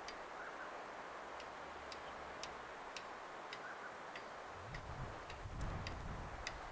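Light, sharp ticking, about two clicks a second and a little uneven, over a steady hiss; a low rumble comes in about halfway through.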